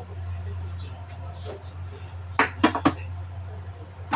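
Cooking utensils clinking against a pan or dish, three quick sharp clinks about two and a half seconds in, over a steady low hum.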